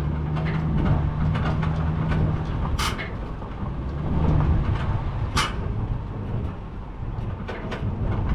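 Truck engine running steadily under way, a low drone, with two sharp rattles or clanks, the first about three seconds in and the second a couple of seconds later.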